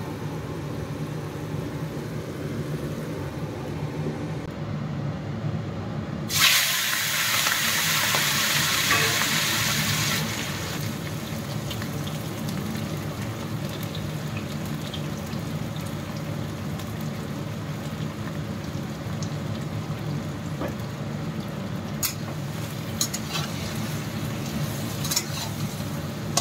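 Prawns frying in hot oil in a kadai over a gas burner. A loud sizzle starts suddenly about six seconds in and dies down after about four seconds to a quieter frying. Near the end there are several sharp clicks of a metal spatula against the pan, over a steady low hum.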